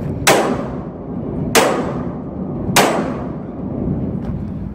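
Three heavy hammer blows on a steel intermodal barrier lock box bolted to a shipping container's door, evenly spaced about a second and a quarter apart. Each is a sharp metal clang that rings out briefly.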